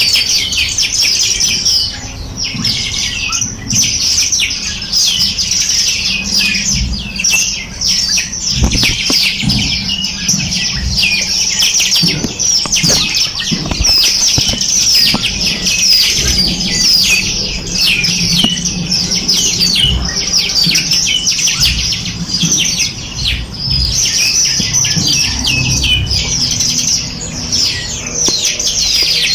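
A flock of small birds chirping and twittering all at once: a dense, unbroken chorus of short high chirps, with low rustling and scattered thumps beneath.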